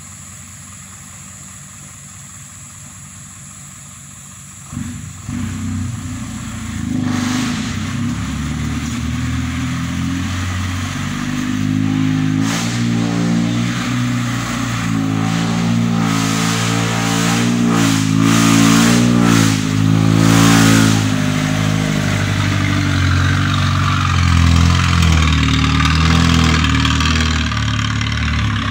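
A vehicle engine comes in loudly about five seconds in, after a low steady hum. It revs with its pitch rising and falling, then settles into a steadier run.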